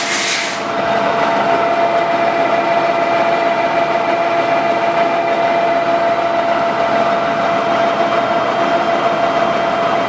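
Large Tarnow engine lathe running steadily, a constant hum with a high steady tone through it from the headstock drive. A short hiss dies away about half a second in.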